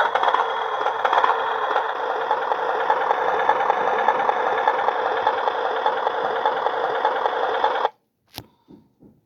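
Engine-sound effect of a miniature Harley-Davidson model motorcycle, a recorded motorcycle engine running steadily through a small speaker, thin and without bass. It cuts off suddenly about eight seconds in, followed by a sharp click and a few faint knocks.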